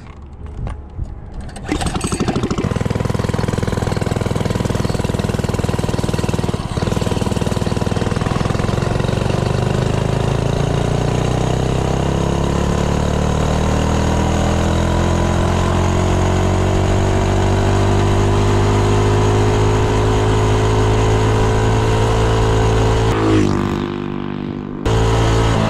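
Coleman CC100X 3 hp single-cylinder four-stroke engine, fitted with a 19 mm Mikuni-style slide carburetor, held at full throttle on a top-speed run. It comes in loud about two seconds in, and its pitch climbs slowly and steadily as the minibike gains speed. Near the end the sound briefly drops and changes.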